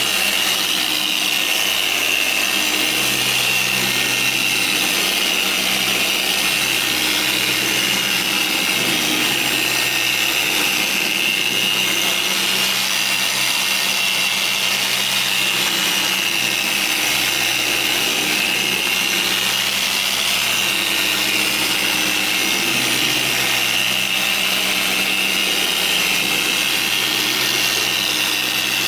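Dual-action machine polisher with a foam pad running steadily against a car's door panel, a continuous high whine over motor noise, polishing the paint during a paint enhancement.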